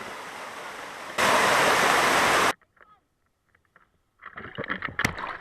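A steady rushing noise, like water or wind, that gets louder about a second in and cuts off suddenly; after a short near-silence, a brief jumble of knocks and tones comes in near the end.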